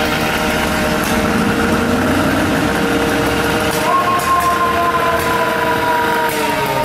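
Seagrave fire engine pulling away with its diesel engine running under load. About four seconds in, a siren tone comes in and slides slowly down in pitch.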